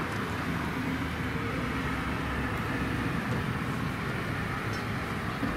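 Car engine running steadily at low revs, a low, even rumble.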